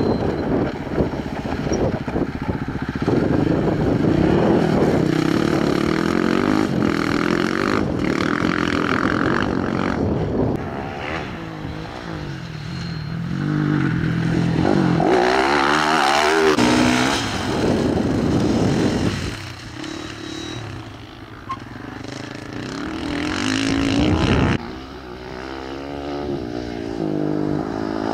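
Off-road rally motorcycle and quad engines revving up and down. One passes close about halfway through with a falling sweep in pitch, and another comes through near the end, its sound cutting off suddenly.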